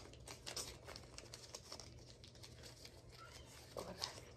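Faint crinkling and rustling of a small paper slip being folded up in the hands, a string of soft quick ticks. A short quiet chuckle near the end.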